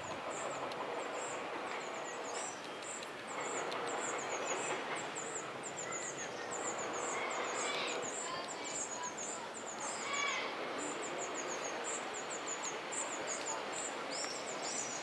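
Birds chirping over and over in short, high, falling chirps above a steady outdoor background hum.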